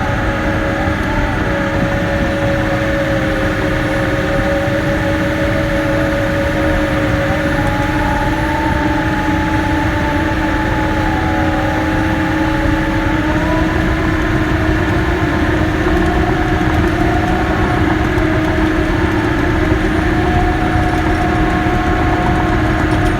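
Caterpillar D6K bulldozer's diesel engine running steadily, with a constant drone and whining tones that shift slightly in pitch about halfway through.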